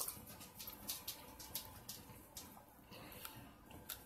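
Faint sipping and swallowing of coffee from a cup, with scattered small clicks.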